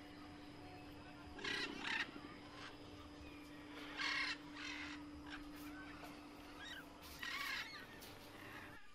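A bird calling in three short bouts, about 1.5, 4 and 7 seconds in, each about half a second long, over a faint steady hum.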